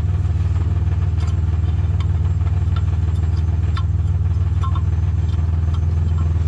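The 1990 Dodge Grand Caravan's 3.3-litre V6 idling steadily, with a few light clicks.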